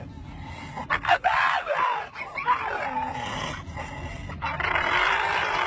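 A dog making a string of strange, squealing, whining vocalizations that bend up and down in pitch, with a harsher, rougher call near the end.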